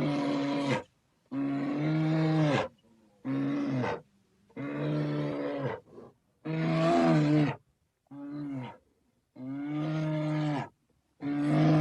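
A bear roaring over and over: about eight separate growling roars, each roughly a second long, with short pauses between them.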